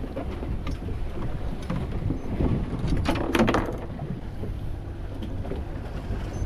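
A small fishing boat's engine running low and steady, with wind on the microphone and water against the hull; a brief louder sound stands out about three seconds in.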